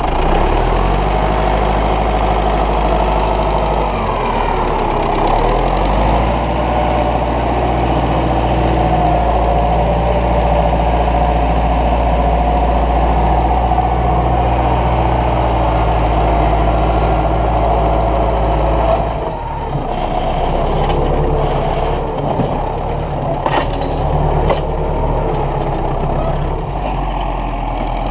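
Ursus 914 tractor's diesel engine running steadily under load while it pulls a large oak log with its rear winch. About two-thirds of the way in the sound shifts and a few sharp knocks come through.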